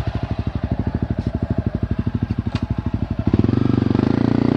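Single-cylinder four-stroke trail bike engine running at a steady, evenly pulsing idle, then opened up about three seconds in, louder for over a second before easing off.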